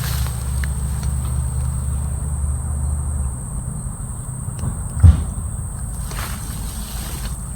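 Insects droning in a steady high-pitched tone over a low rumble that fades about three seconds in, with a single loud thump about five seconds in.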